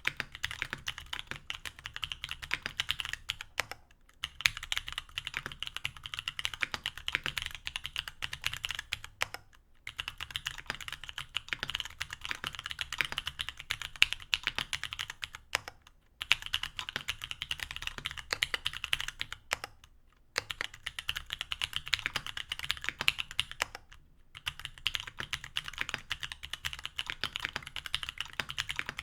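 Mechanical keyboard typing with stock C³Equalz X TKC Kiwi tactile 67g switches on an aluminium plate with GMK keycaps: fast runs of key clacks in bursts of a few seconds, broken by short pauses about every four to six seconds.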